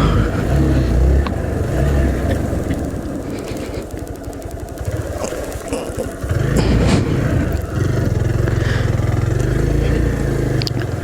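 Hero Xpulse 200T's single-cylinder engine running at low speed on a rough trail. It eases off for a few seconds, then picks up again about six seconds in.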